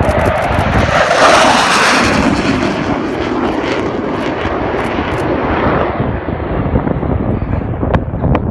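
A low flypast by a Panavia Tornado GR4. The noise of its twin RB199 turbofan engines is loudest about a second in, then fades steadily as the jet flies off down the valley.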